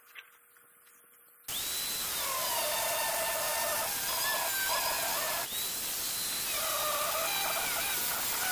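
Angle grinder with a cut-off disc starting up about a second and a half in and cutting into the steel side panel of a school bus: a high whine over a loud hiss, its pitch shifting as the disc bites. It dips briefly a little past the middle and picks up again.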